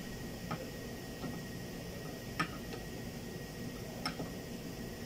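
Hand wrench working the nut on a wiper pivot, giving a few sharp metallic clicks at uneven intervals, the loudest about halfway through.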